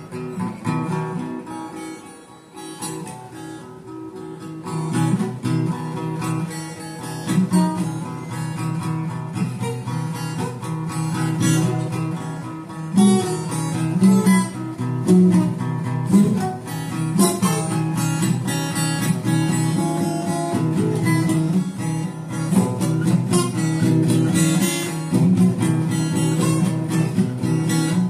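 Acoustic guitar being strummed, chords ringing one after another; softer for the first few seconds, then played fuller.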